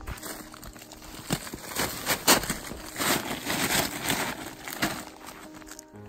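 Irregular rustling and crinkling of nylon tent fabric and clothing as a person crawls through a dome tent, loudest a couple of seconds in.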